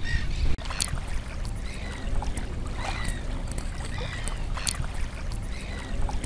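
Wind rumbling on the microphone outdoors, with a few faint short bird chirps and light clicks scattered through.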